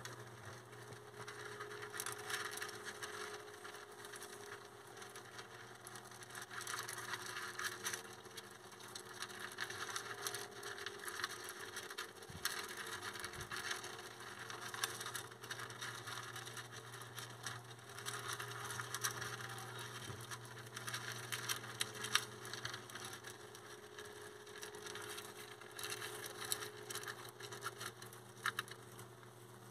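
Dwarf hamsters eating from a metal bowl of seeds and pellets: many tiny, rapid crunches and clicks as they crack and chew the food, over a steady low hum.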